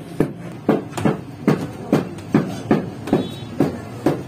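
Repeated sharp knocks, about two or three a second, of a wooden tool striking flatbread dough on a bakery work table.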